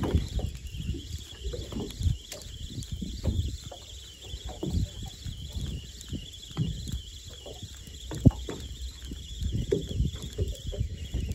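Spinning reel being cranked as a hooked filefish is reeled up to the boat, over irregular low knocks and buffeting, with one sharp click about eight seconds in.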